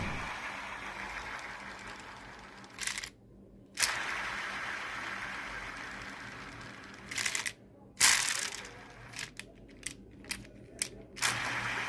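The tail of a loud boom dies away, followed by a few short noisy bursts and then a run of five sharp mechanical clicks, with abrupt dead silences cutting in between some of them.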